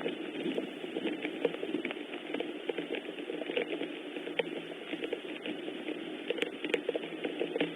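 Steady rain falling, a dense patter of drops with many small ticks.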